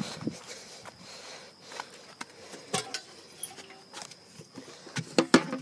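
Footsteps and handling noise from someone moving across grass with a hand-held camera: scattered light clicks and knocks, one sharper about three seconds in and a louder cluster near the end.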